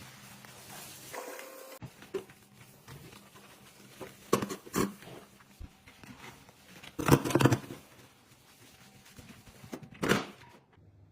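Intermittent rubbing and knocking noises of a kitchen sink being scrubbed clean, a few short louder strokes standing out, the loudest about seven seconds in.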